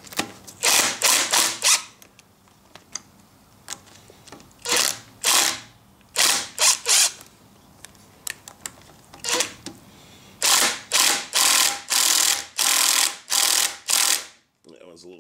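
Hand ratchet wrench clicking in quick back-and-forth strokes, loosening the mounting bolts of a Kubota V1702 diesel's fuel injection pump. It comes in short bursts with pauses, and a longer steady run of strokes comes near the end.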